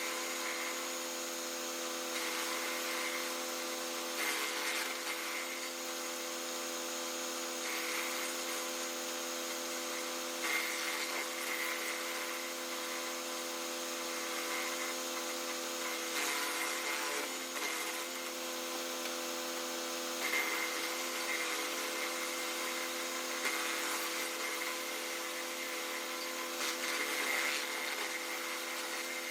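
Tractor-driven brush chipper with a hydraulic in-feed, run by an LS XR3135 compact tractor's diesel engine held steady at working speed. Every few seconds there is a short, louder burst of crackling as branches are fed in and chipped.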